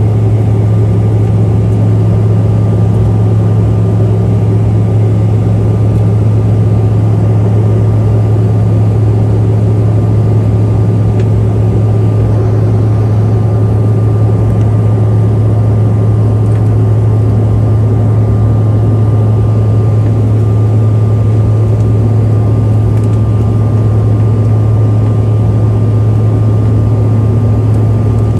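Airliner cabin noise during the climb after takeoff: the engines and the airflow make a steady, loud low drone with a thin, even whine above it.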